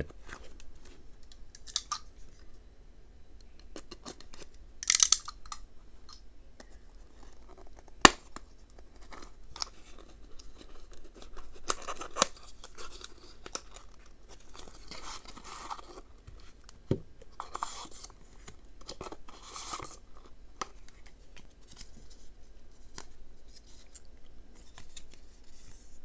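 A small cardboard box being opened and its contents handled, with short tearing and rustling noises of cardboard and paper. Scattered clicks and scrapes run through it, the sharpest a single click about eight seconds in.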